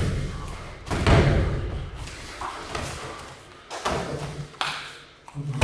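Dull thuds of blows landing in Thai-boxing sparring, several strikes in a few seconds, the loudest about a second in.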